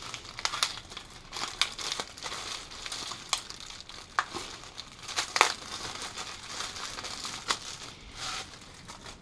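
Clear plastic bag crinkling and crackling in the hands as a new dipstick tube is pulled out of its packaging, with many sharp crackles throughout, the loudest about halfway through.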